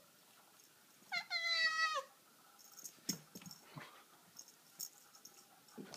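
A Siamese cat gives one loud meow lasting about a second, starting about a second in and dropping in pitch at its end. Then come scattered light taps and clicks of its paws moving over a tile floor.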